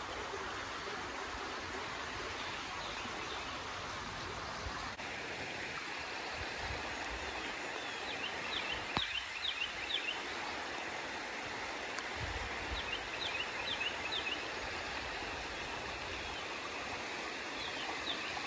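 Beaver Dam Creek's shallow water running over rock ledges: a steady rush of flowing water.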